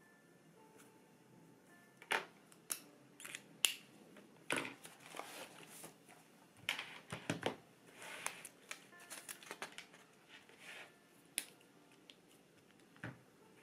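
Stationery handled on a wooden desk: a spiral notebook, pens and paper being picked up and set down, giving a string of short clicks, taps and paper rustles that start about two seconds in, with a single knock near the end.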